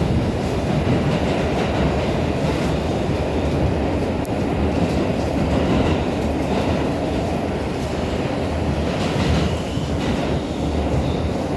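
R142 subway car running at speed: a steady rumble of wheels on rail with irregular clatter over the track, heard from inside the car with its air-conditioning switched off.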